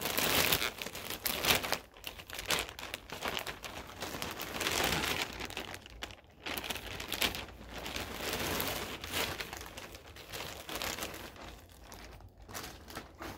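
White plastic poly mailer bag crinkling and rustling in irregular bursts as it is opened and handled.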